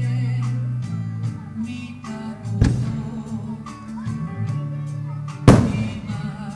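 Music with singing playing steadily, broken by two firework shell bursts: a sharp bang about two and a half seconds in and a louder one with an echoing tail about five and a half seconds in.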